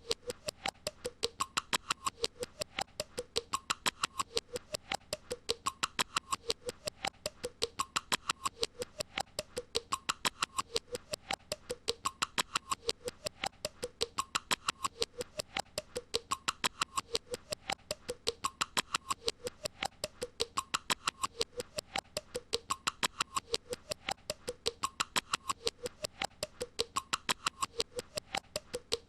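A short sound effect looped over and over: rapid, even clicking with a squeaky tone that rises and falls, the pattern repeating about every two seconds.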